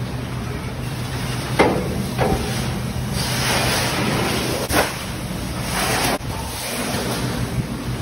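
Sheet-metal hand brake being worked on a galvanized duct panel: three sharp metal clanks over steady shop noise with a low hum.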